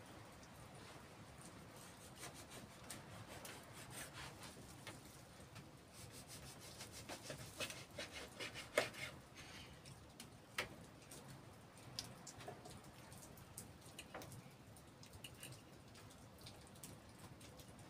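Knife cutting cured meat on a wooden cutting board: faint, scattered scrapes and taps of the blade on the wood, with one sharper knock about halfway, and later cutlery working on a plate.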